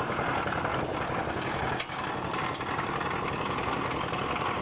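An engine running steadily, with a fine low pulsing, and a couple of short sharp clicks about two seconds in.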